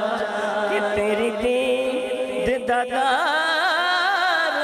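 A man singing a Punjabi naat into a microphone, holding long, ornamented notes with a wavering pitch, breaking off briefly past the middle and starting a new phrase.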